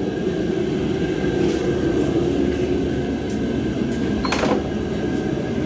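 Steady low rumble of background noise, with one brief clatter about four seconds in.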